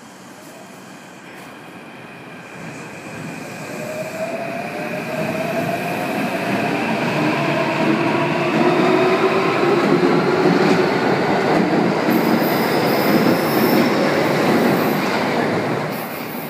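Kintetsu 7020 series electric train pulling out and accelerating past: the VVVF inverter traction motors give several whines that climb slowly in pitch as it gathers speed. Under them, wheel and rail noise grows to its loudest as the cars pass close, then falls away near the end.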